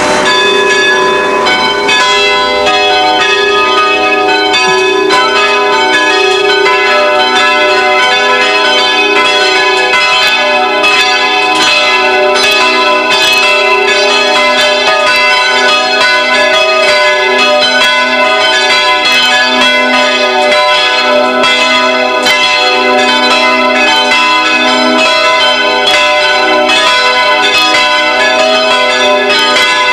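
Church bells pealing: several bells of different pitches struck over and over, their tones overlapping and ringing on, filling out over the first couple of seconds.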